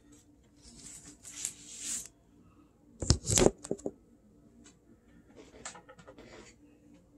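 Handling sounds as a vinyl record is put on the turntable: a rustle, then a loud thump about three seconds in followed by a few quick clicks, and faint clicks later.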